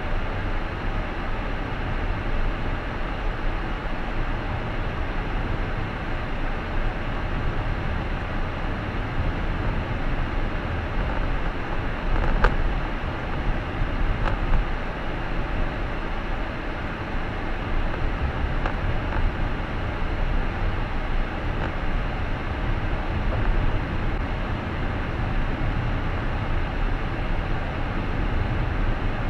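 Steady rumble of a car being driven, tyres and engine heard from inside the cabin, with a couple of light clicks about halfway through.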